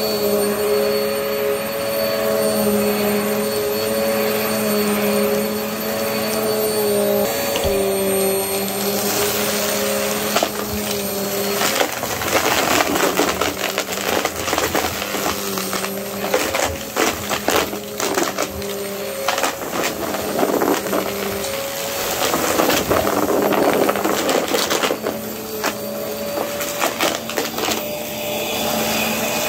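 Upright vacuum cleaner running over carpet with a steady motor hum. From about nine seconds in, a long stretch of crackling and rattling comes through as it sucks up scattered debris, thinning out near the end.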